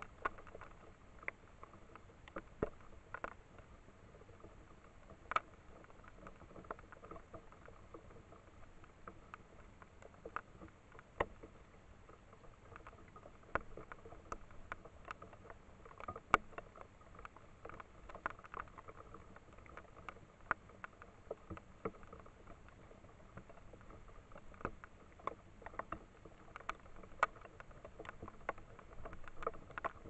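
Raccoon dog rooting about for food in dry leaves and grass: irregular sharp crackles and crunches over a steady faint hiss.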